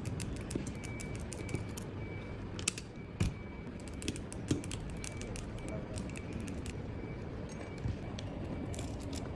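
Small sharp clicks and taps of hand tools working on a phone, over a steady low hum, with a short high beep repeating for stretches.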